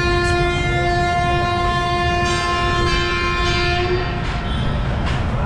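A train horn sounding one long steady blast of about four seconds, over the low rumble of a train.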